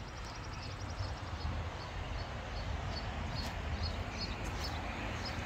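A small bird chirping over a steady low rumble outdoors: a quick high trill near the start, then single short chirps every half second or so.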